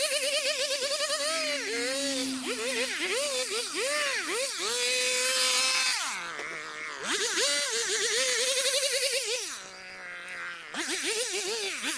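Stihl HS 60 hedge trimmer's two-stroke engine revved up and down in quick throttle bursts as it cuts, dropping back toward idle briefly about six seconds in and again near ten seconds.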